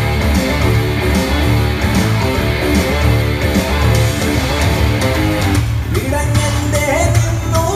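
Loud dance music with a strummed guitar and a steady bass beat, played over loudspeakers for a stage dance. Near the end the track drops out briefly and a new section with a gliding melody line comes in.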